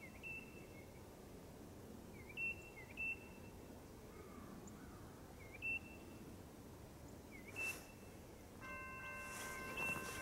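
A bird gives short chirps every couple of seconds over a faint low rumble. About eight and a half seconds in, the approaching Norfolk Southern GE Dash 9 locomotive's air horn starts sounding, a steady chord of several notes.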